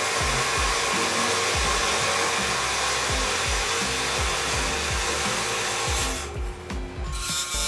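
Table saw spinning a toothless 0.73 mm 3D-printed PLA blade pressed against a pine board: a steady rushing whir as the plastic blade rubs, melts and wears down against the wood instead of cutting. The noise dips briefly about six seconds in, then picks up again.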